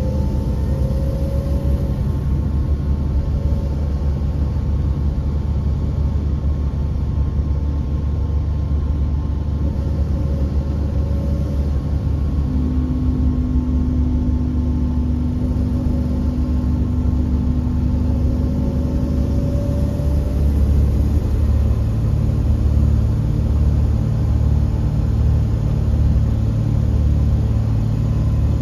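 A Volvo B7R coach's diesel engine and road noise, heard inside the passenger cabin while the coach is moving: a steady, loud low rumble. A fainter whine rises in pitch a few times, with a steadier hum through the middle stretch.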